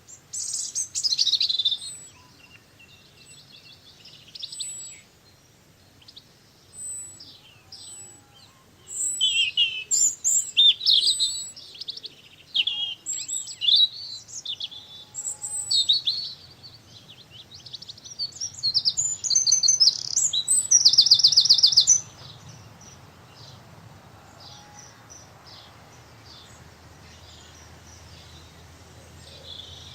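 Small garden birds chirping and calling in quick, overlapping bursts, with a fast, even trill about two-thirds of the way in, then a quieter spell near the end.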